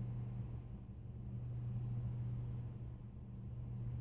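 Steady low hum of room tone.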